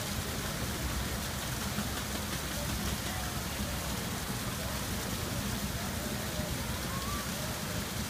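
Steady rush of a small waterfall splashing down rocks into a pool, with a few faint, short chirp-like glides over it.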